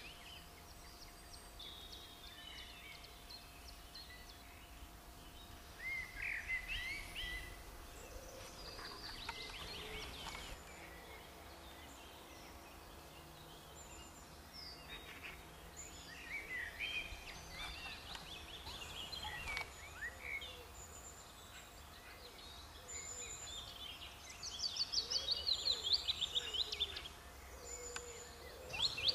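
Small songbirds calling: scattered thin chirps and whistles, with a quick run of repeated notes near the end.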